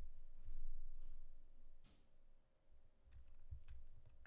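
A few scattered clicks of computer keyboard keys in a quiet room, one about two seconds in and a small cluster a little past three seconds, over a faint steady hum.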